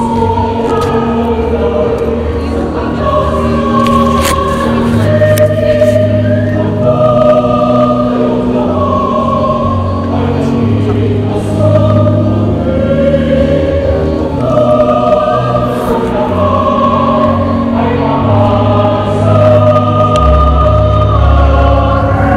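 A choir sings a slow hymn with instrumental accompaniment. The sung notes are held about a second each and step from one pitch to the next over steady low notes.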